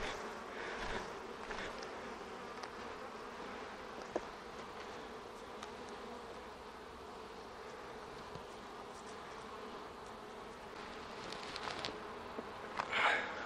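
Honeybees buzzing in a steady hum over an open hive full of bees. A few soft scraping sounds come near the start and again near the end, with a single small click about four seconds in.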